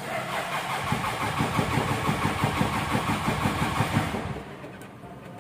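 Freshly rebuilt diesel truck engine being started: it cranks and catches, running in quick uneven pulses for about three seconds, then dies away about four seconds in. The stall is the engine being starved by a sticking fuel-cut solenoid, as the mechanic finds.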